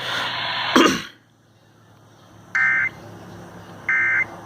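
An Emergency Alert System broadcast ends: the automated voice cuts off with a click about a second in. Then come two short, identical buzzy data bursts about 1.3 s apart, the EAS end-of-message tones that close the warning.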